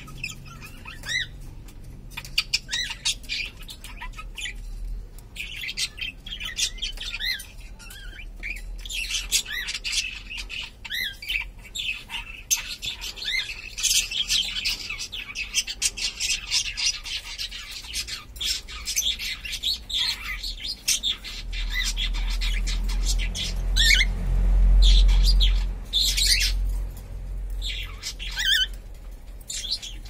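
Cockatiels chirping and squawking, with bursts of rapid chatter. About three-quarters of the way through, a low rumble rises and becomes the loudest sound, then fades.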